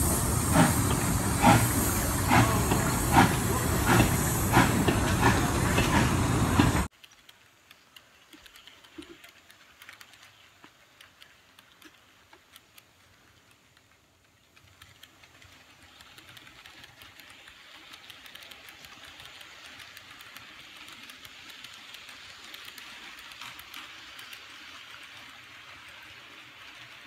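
Steam locomotive chuffing sound with steady hiss, even chuffs in a regular rhythm, cutting off suddenly about seven seconds in. After that, only the faint steady running noise of a model train's wheels rolling on the track, growing a little louder past the middle.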